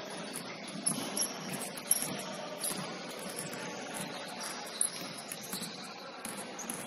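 Several basketballs bouncing on a hardwood gym floor, with irregular sharp thumps, and short high-pitched sneaker squeaks, all echoing in a large gym.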